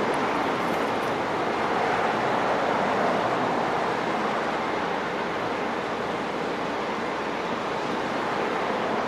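Steady rushing noise of a Siemens Charger diesel-electric locomotive standing at idle, its engine and cooling fans running.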